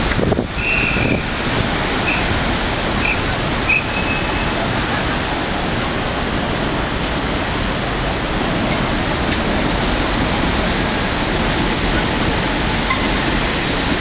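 Heavy typhoon rain and wind: a steady, loud rush of noise. A few short high-pitched chirps sound in the first few seconds.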